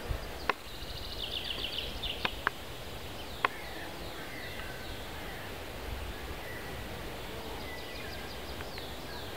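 Small songbirds singing in the background: a quick trill of repeated high notes about a second in, then short downward-sweeping high notes later, over a steady low rumble. A few sharp clicks fall in the first few seconds.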